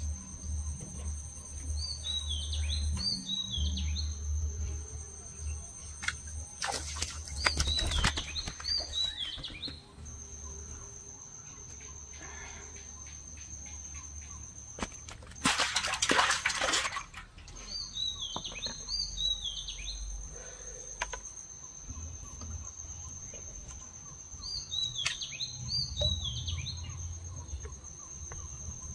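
A bird calling in repeated short phrases of quick falling chirps, over a steady high-pitched insect whine. Twice, about 7 s in and again about 16 s in, a loud rush of noise briefly drowns them.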